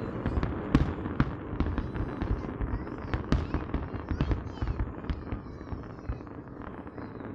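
Aerial fireworks display going off: a rapid string of bangs and crackles over a low rumble, thinning out toward the end.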